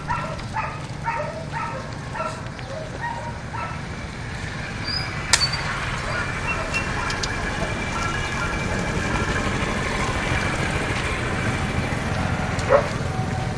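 A dog barking repeatedly, two or three barks a second, for the first three seconds or so. Then a motorized tricycle's engine runs steadily and grows gradually louder as it approaches, with one sharp click about five seconds in.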